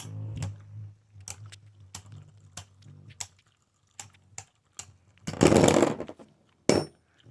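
Spinning Beyblade Burst tops clicking against each other and the plastic stadium wall, over a low spinning hum. About five seconds in comes a loud clatter lasting under a second, one top bursting apart for a burst finish, then a single click.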